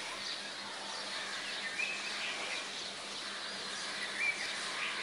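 Outdoor ambience: birds chirping now and then, with short calls about two seconds in and again near the end, over a steady background noise.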